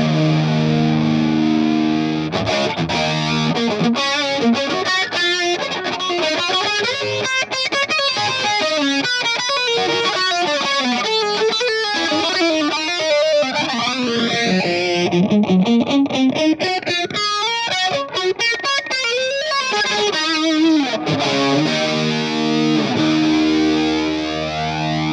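Distorted electric guitar played through a vintage A/DA Flanger: a held chord, then a run of picked notes with the flanger's sweep moving slowly up and down through the tone, ending on another held chord.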